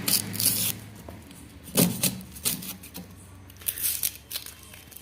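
Dry, papery onion skins rustling and crackling as onions are peeled by hand, in short scattered bursts with a few light clicks.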